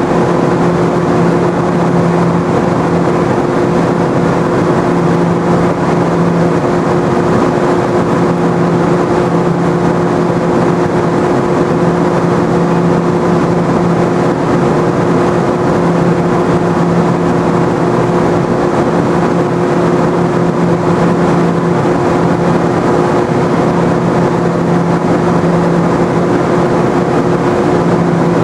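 Steady loud electrical hum and drone from an M7 electric multiple unit creeping slowly into an underground platform, with a low tone that comes and goes every couple of seconds and no rise or fall in loudness or pitch.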